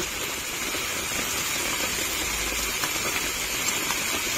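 Tomato purée sizzling in hot oil and spice paste in a kadai, a steady hiss with a few faint ticks.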